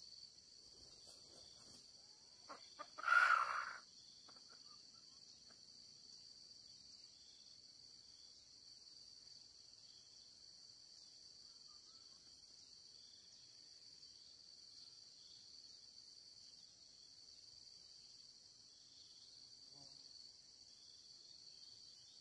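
A red junglefowl rooster crows once, a short call about three seconds in, over the steady high chirring of insects.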